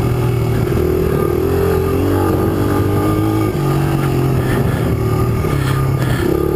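Small single-cylinder four-stroke engine of a Honda CRF100 dirt bike running under way on a dirt trail. Its pitch steps up about three and a half seconds in, then dips and rises again near the end as the throttle changes.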